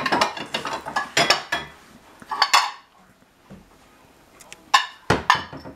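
Kitchen clatter of dishes and utensils: a run of clinks and knocks, a short scrape, then two sharp knocks near the end.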